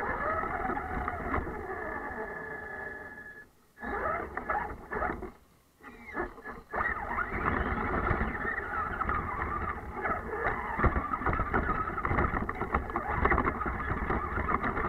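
Electric RC car's motor and drivetrain running hard through snow, with rattles and clicks. A steady high whine holds for the first three and a half seconds, the sound drops out briefly twice, then it runs continuously to the end. The sound is muffled, with nothing above the upper mids.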